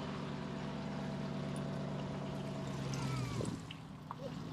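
Tow vehicle's engine running steadily as it pulls the boat on its trailer up the ramp, with water running off the boat. The engine note drops away a little over three seconds in.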